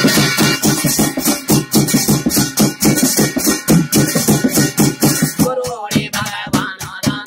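Garhwali jagar ritual music: fast, even drum strokes keep up a driving rhythm, and a man's singing voice comes in about five and a half seconds in.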